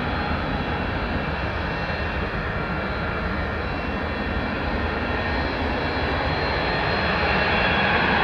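Antonov An-124-100's four D-18T turbofans running at taxi power: a steady jet rumble with a layered high whine, growing slightly louder near the end as the aircraft taxis closer.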